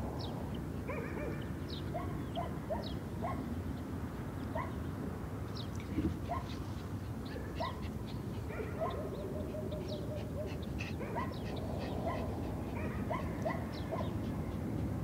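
Short animal calls, scattered and repeated, over a steady low rumble from a distant approaching diesel freight train.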